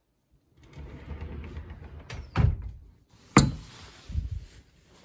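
Rustling and knocking around a wardrobe: a dull knock about two and a half seconds in, a sharp click about a second later, and a softer knock after it.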